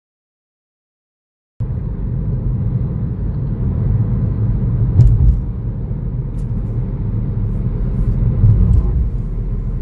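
Silence for about the first second and a half, then the steady low rumble of a car driving, heard from inside the cabin, with a few faint clicks.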